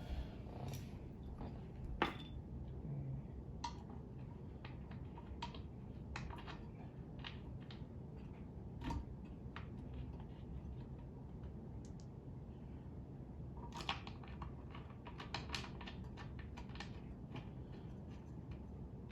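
Scattered light clicks and taps of screws and chair parts being handled and fitted into their holes during assembly, with a quicker run of ticks about three-quarters of the way through.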